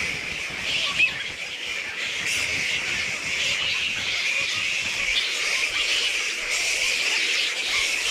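A roosting colony of flying foxes (fruit bats) calling all at once: a dense, continuous squabbling chatter of many high squeaks and screeches, the colony restless at a person close by. One brief knock about a second in.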